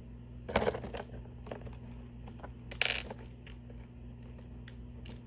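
Lego plastic pieces clicking and clattering as the small brick-built vending machine is worked and the drink piece drops: two short clatters, about half a second in and about three seconds in, with a few faint clicks between.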